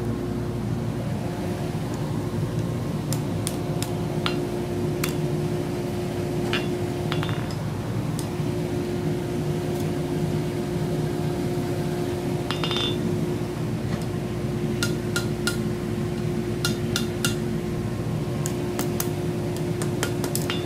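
Blacksmith's hammer tapping a hot scroll of round mild steel against the anvil face to shape it. The strikes are light and spaced irregularly, some with a short metallic ring, with a quicker run of blows near the end, over a steady background hum.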